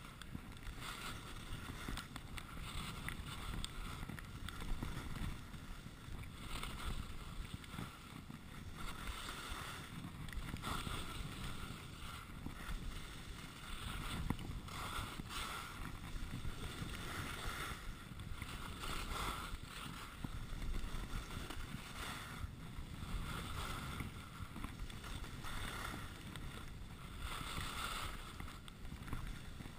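Wind rushing over a GoPro camera's microphone during a downhill ski run, with the hiss of skis carving and scraping packed snow swelling and fading at each turn, every couple of seconds.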